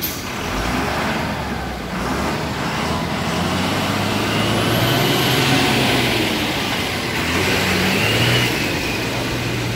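Tata truck's diesel engine running under load as the heavy truck crawls over loose rubble, its pitch rising and falling slowly.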